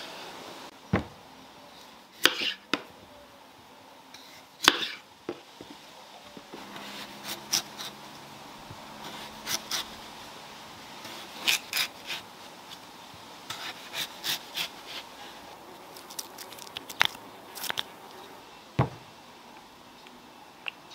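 Kitchen knife cutting raw potato and bacon on a wooden cutting board: irregular sharp knocks and clicks of the blade meeting the board, with soft scraping between them.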